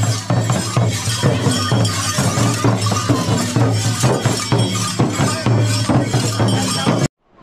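Jhakri shamans' dhyangro frame drums beaten in a fast, steady rhythm, with the jingling and clashing of the bells on their dancing costumes and a low hum underneath. The sound cuts off abruptly near the end.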